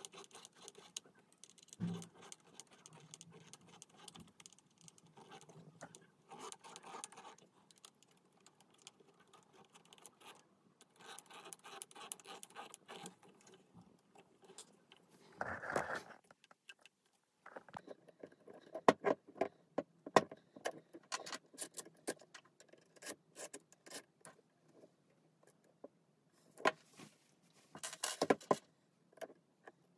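Hand-assembly noises: a screwdriver and small metal and plastic parts clicking, tapping and scraping in scattered bursts as a metal servo bracket is screwed onto a 3D-printed mount. About halfway through there is one longer, louder scrape. After that come sharper, denser clicks of parts being picked up and set down.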